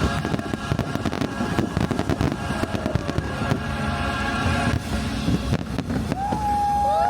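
Fireworks going off in a rapid string of bangs over loud show music.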